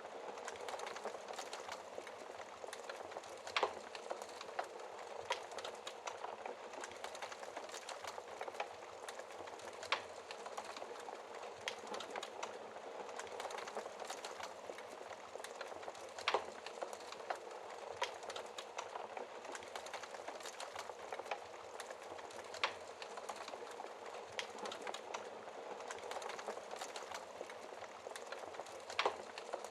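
Wood fire burning behind a glass fireplace door: a steady hiss with frequent small crackles and a louder pop about every six seconds.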